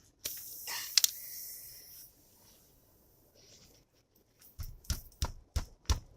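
Tire plug insertion tool being forced into a punctured car tire tread: a brief hiss with a sharp click about a second in, then a run of about six dull knocks near the end.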